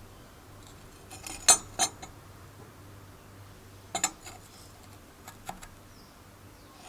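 Sharp metallic clinks and knocks as metal pieces are handled and set down on a hard surface. There are a few separate strikes, the loudest pair about a second and a half in and another pair around four seconds.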